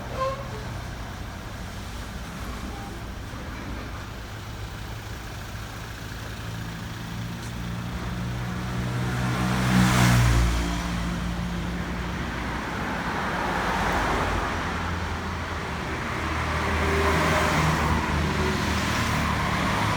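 Road traffic: vehicle engines running, with vehicles passing louder about halfway through and again near the end.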